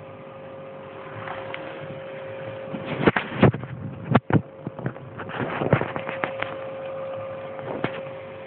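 A steady electrical hum, with a run of sharp clicks and knocks about three seconds in that returns in a quicker flurry around the sixth second and once more near the end.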